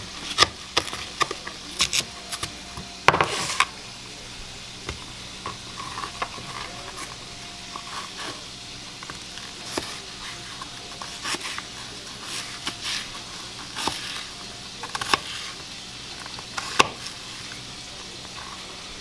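Kitchen knife slicing and dicing an onion on a plastic cutting board: irregular knocks of the blade on the board, a few bunched quickly together about three seconds in, over a steady low hiss.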